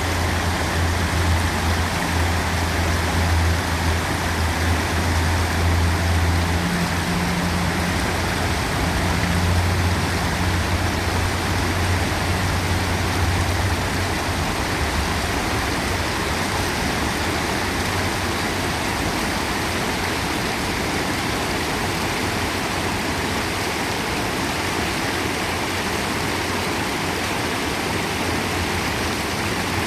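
River water rushing in a steady, even wash. A low hum, like a vehicle engine, sounds under it for roughly the first half and fades out.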